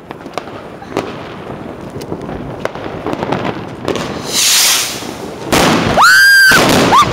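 New Year's fireworks: scattered crackles and pops, a high hiss about four seconds in, then very loud firework bangs and two shrill whistles near the end, each rising in pitch and then held.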